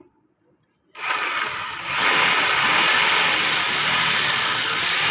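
Loud, steady machine noise starting abruptly about a second in after near silence, growing louder a second later and then holding steady.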